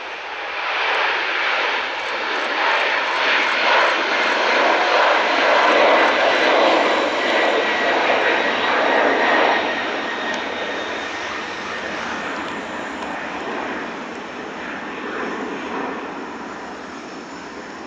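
Boeing 747-400 freighter's four turbofan engines at takeoff power as it climbs out: a loud rushing jet noise that swells within the first couple of seconds, peaks in the middle, then slowly fades as the aircraft climbs away.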